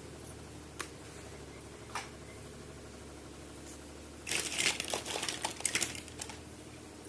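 Plastic toy packaging crinkling and crackling for about two seconds in the second half, after two light clicks, over a low steady hum.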